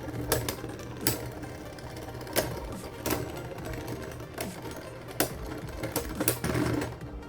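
Beyblade Burst top Spriggan Requiem spinning in a plastic stadium. A steady whir is broken by about a dozen irregular sharp clacks of hits.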